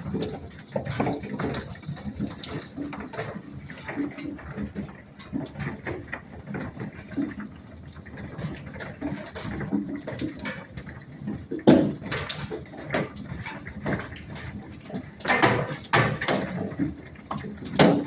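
Hail coming down with rain: a dense, irregular patter of hailstones striking, with now and then a louder single hit.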